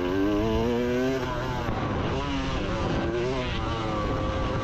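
KTM motocross bike's engine being ridden around a dirt track, revving up and dropping back several times as the rider works the throttle through the course.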